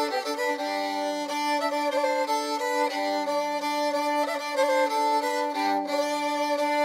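Instrumental background music: a melody moving over a steady held drone note.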